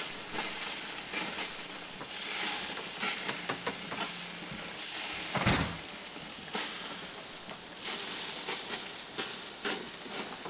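Food sizzling in a frying pan, a loud steady hiss that fades about seven seconds in, with a few small clicks and one dull thump about five and a half seconds in.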